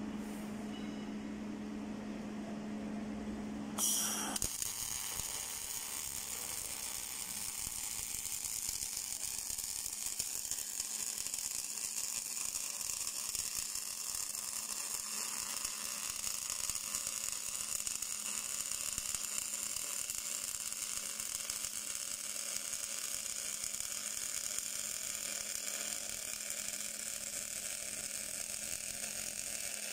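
A steady electrical hum, then about four seconds in a MIG welding arc strikes with a click and runs on as a continuous sizzling hiss as the automatic welder lays a seam on a steel tube.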